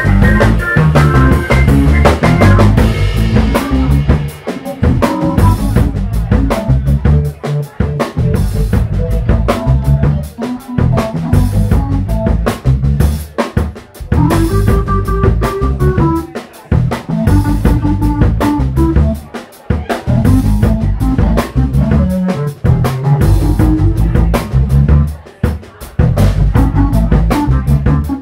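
A live soul-funk instrumental from a four-piece band: a drum kit keeps a busy groove under electric bass, electric guitar and organ.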